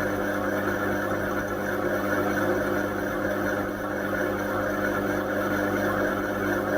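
Indesit washing machine running, a steady machine hum with even drum and motor noise.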